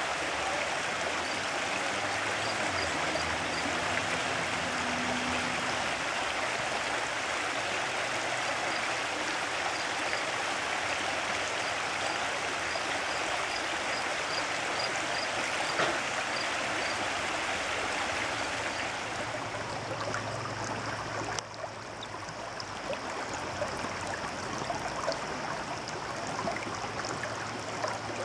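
Shallow river flowing steadily over rocks and riffles. Faint high chirps repeat over the water for the first two-thirds.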